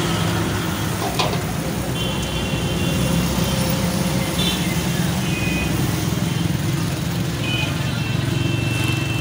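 Steady street traffic running past, with a sharp click about a second in and several short, high-pitched tones that come and go.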